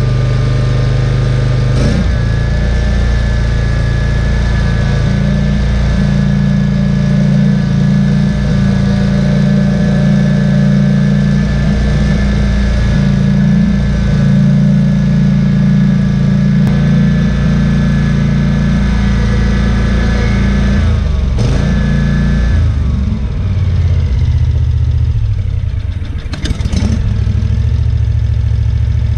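SCAG Tiger Cat II zero-turn mower's V-twin engine running. It is throttled up about two seconds in and held at a steady higher speed, then brought back down to a lower idle a little after twenty seconds. A couple of short knocks come near the end.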